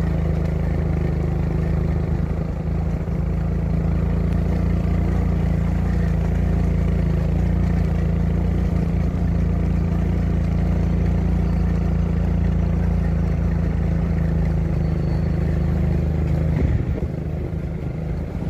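Motorcycle engine running at a steady low speed, an even low drone that holds one pitch.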